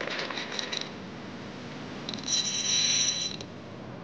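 Spinning reel whirring as line is worked in against a hooked fish: a few short whirs in the first second, then a steadier whir lasting about a second in the middle.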